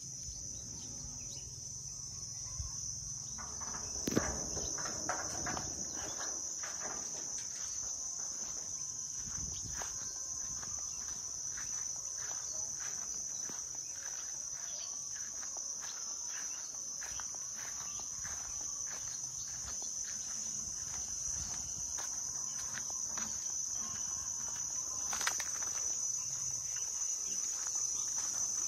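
Steady, high-pitched chorus of insects droning without a break. Scattered light clicks and rustles sound beneath it, thickest about four seconds in and again near the end.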